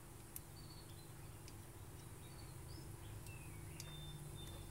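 Faint background birdsong: a few short high chirps and a brief whistle over a low steady hum, with a single light click about half a second in.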